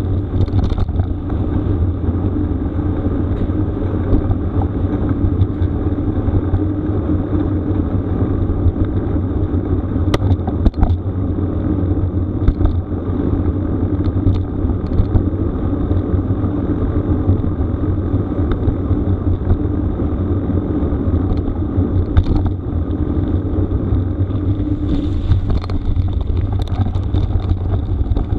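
Steady low rumble of tyres rolling over a rough gravel forest road, mixed with wind on the microphone, with scattered clicks and knocks from the jolting ride.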